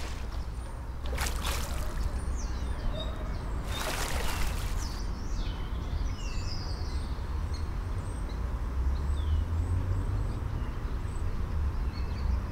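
Pool water splashing in two short bursts, about a second in and about four seconds in, as a swimmer moves through the water and climbs out. Small birds chirp repeatedly over a steady low rumble.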